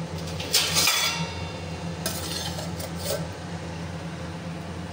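A steel lid being set down on a steel pot: a ringing metallic clatter about half a second in, then lighter clinks twice more, over a steady low hum.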